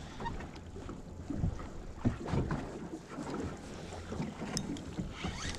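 Wind rumbling on the microphone aboard a small open fishing boat, with a few light knocks and handling sounds about a second and a half and two seconds in.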